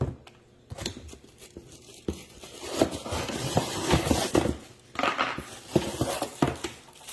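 Packaging being handled and unwrapped from an electric kettle and its base: rustling in bursts with several sharp clicks and knocks.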